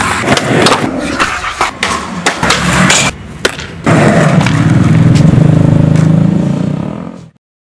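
Skateboard on concrete: a quick string of sharp clacks and board impacts from tricks and landings, then a louder, steady low rumble of the wheels rolling for about three seconds, fading out near the end.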